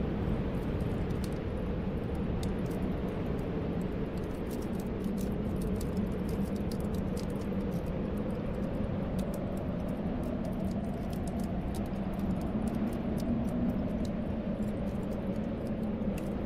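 Snowstorm wind blowing steadily, with low whistling tones that slowly waver in pitch, over a wood fire crackling in a fireplace with many small pops.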